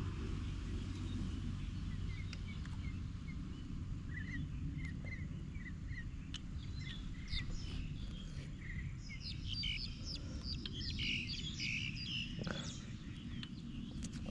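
Small birds chirping in short, quick notes, sparse at first and busier about two-thirds of the way through, over a low steady rumble.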